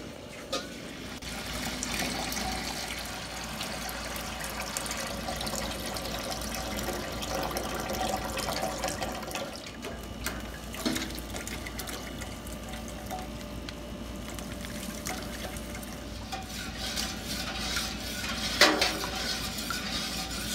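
Sugar pouring from a plastic bag into a stainless steel pot of liquid, a steady pouring hiss. Two brief knocks come about eleven seconds in and near the end.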